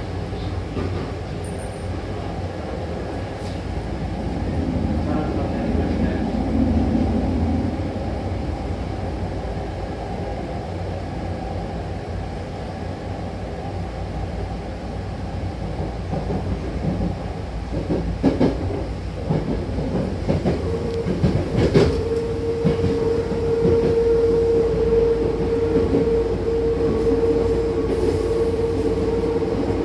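A Hankyu commuter train running, heard from inside the passenger car: a steady rumble of wheels on rail, with a few sharp clacks over rail joints. About two-thirds of the way through, a steady whine joins in and holds.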